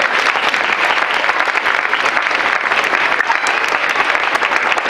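Audience of schoolchildren applauding, many hands clapping in a dense, steady patter.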